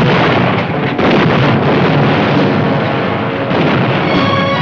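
Film sound effect of a large explosion as a burning mansion blows up: dense, continuous blast noise with fresh blasts about a second in and again about three and a half seconds in. Orchestral music comes in near the end.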